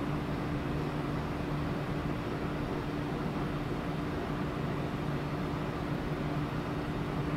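Steady room tone: a constant low mechanical hum with an even hiss, like a running air conditioner.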